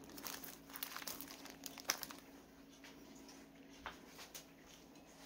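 Faint rustling and scattered light clicks of small plastic zip bags being handled on a metal wire storage rack, mostly in the first two seconds, over a low steady hum.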